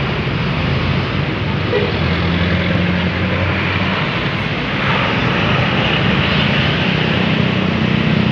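Bus engine running steadily with road noise, a continuous low hum.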